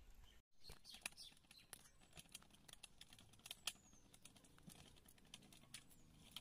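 Near silence with faint, scattered small clicks and ticks, and a faint high bird chirp about four seconds in.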